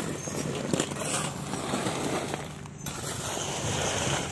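Gritty crunching and scraping on broken concrete rubble, with scattered clicks and clinks.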